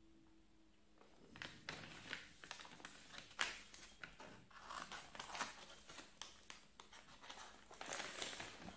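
Faint rustling and crinkling of packaging being handled, with scattered light clicks and knocks. It starts about a second in.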